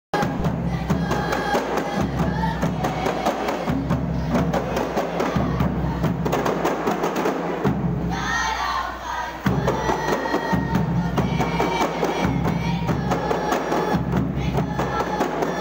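A kompang ensemble of hand-held frame drums beaten in a fast, dense interlocking rhythm, with a larger drum adding a low beat. The drumming thins out briefly just past the middle, with voices heard in the gap, then comes back in at full strength.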